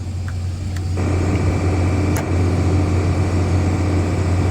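Excavator's diesel engine running steadily, then revving up to a louder, fuller working note about a second in.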